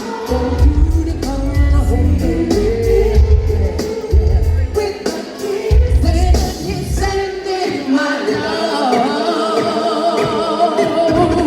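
Live concert music: a sung vocal line over a heavy bass beat, the bass dropping out about six seconds in while the singing continues.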